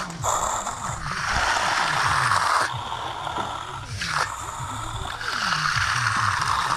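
Finishing trowel scraping across fresh concrete in long strokes, each lasting about a second or more, with short pauses between them.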